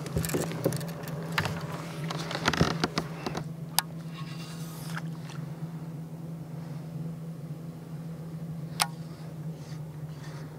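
Fishing tackle being handled on a plastic kayak: a flurry of clicks and rattles for the first few seconds, then two single sharp clicks, about four and nine seconds in. A steady low hum runs underneath.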